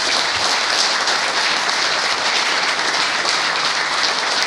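Audience applauding, a steady, loud clapping from many hands.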